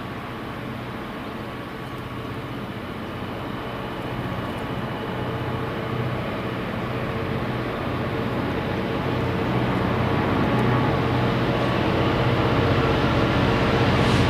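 Diesel freight locomotive approaching with a steady engine hum that grows louder throughout.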